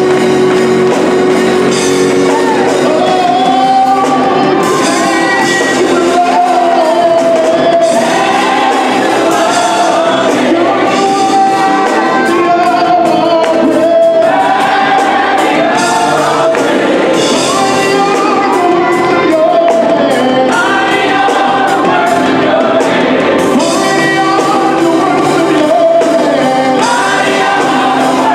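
Gospel choir singing live, backed by a band of organ, electric bass and drums.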